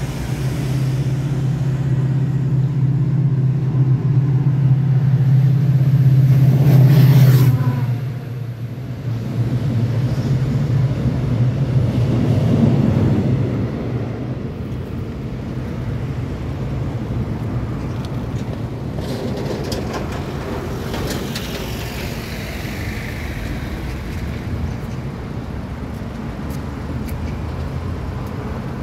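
Road traffic: a heavy vehicle's engine hums loud and low, swells to a peak about seven seconds in, then falls away as it passes. A second vehicle swells by around twelve seconds, and a steady traffic rumble follows.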